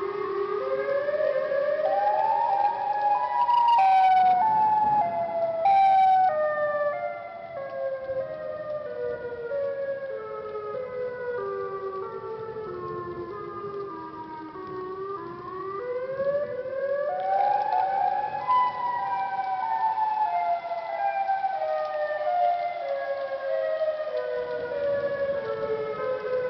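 A siren wailing: its pitch climbs, then falls slowly in small steps, and climbs and falls again about halfway through. Two short, loud noisy bursts come a few seconds in.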